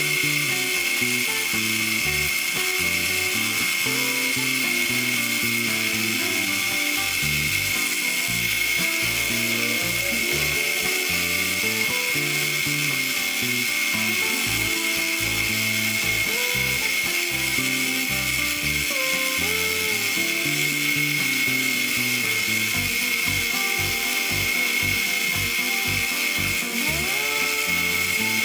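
Dremel rotary tool running steadily at high speed with a constant high whine, grinding pitting off the steel pliers. Background music plays along with it.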